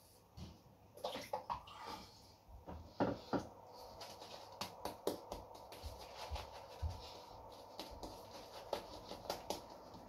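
Shaving brush lathering shaving cream onto the face: a run of quick, short, bristly strokes. In the first few seconds there are a few irregular knocks and wet handling sounds before the brushing settles in.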